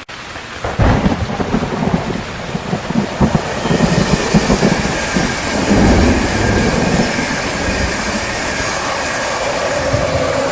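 Steady rain falling, with a thunderclap breaking out about a second in and rumbling on with crackles for several seconds before easing back into the rain.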